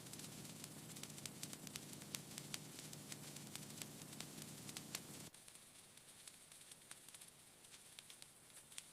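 Near silence: a faint hiss with scattered tiny clicks, dropping even lower about five seconds in.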